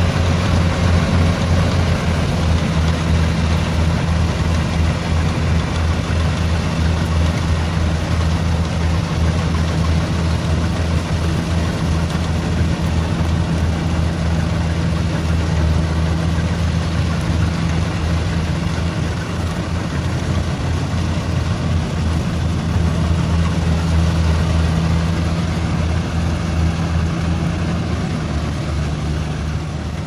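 Kubota DC-70X rice combine harvester running steadily while it harvests: a steady low engine drone with a broad mechanical rush from the machine over it.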